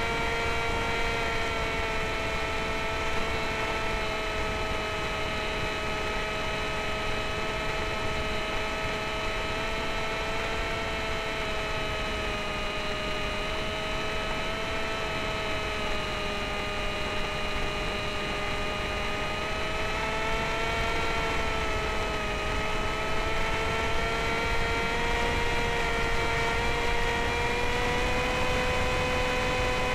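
Electric motor and propeller of a Sky Shadow S800 flying wing in flight, heard from the onboard camera: a steady whine over a rush of airflow, dipping slightly in pitch midway and climbing again near the end.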